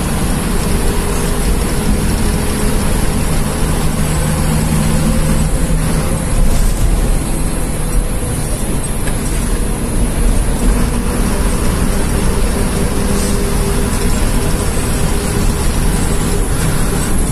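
Bus diesel engine drone and road noise heard from inside the cab of a moving bus, steady throughout with the engine pitch shifting a little.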